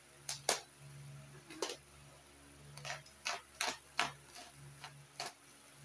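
Sharp, irregular crackles and clicks of plastic packaging being handled and pulled open, about eight in all.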